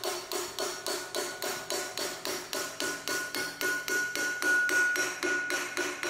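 Small hand hammer tapping rapidly on a thin steel strip held against a handle, about four light strikes a second, each with a short metallic ring.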